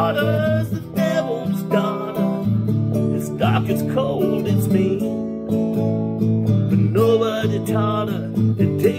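Acoustic guitar strummed in a steady rhythm, with a man's voice singing over it in short phrases.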